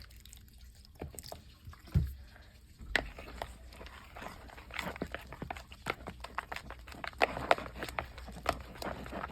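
A wet, sticky slime mixture being stirred in a bowl, making irregular squelches and small clicks that thicken from about three seconds in, after a couple of knocks.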